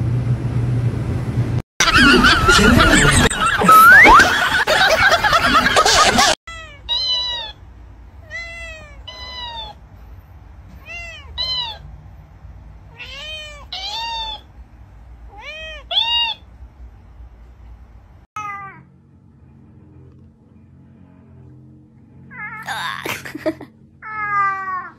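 A kitten meowing over and over: about a dozen short meows, each rising and then falling in pitch, in the middle of the stretch. These follow a few seconds of loud, noisy sound near the start. A brief louder cry comes near the end.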